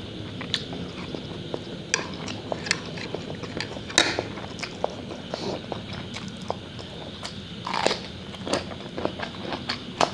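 Close-miked eating: a person chewing spicy instant noodles and taking crisp, crunching bites of raw cucumber, heard as many short sharp clicks and crunches.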